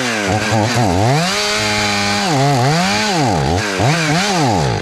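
Two-stroke chainsaw running, its revs rising and falling over and over, then starting to die away at the very end as it runs out of fuel.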